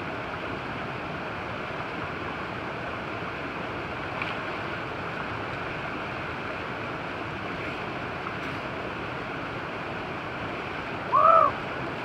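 Steady rush of a river tumbling over small cascades between lava rocks. Near the end comes one short loud call that rises and falls in pitch.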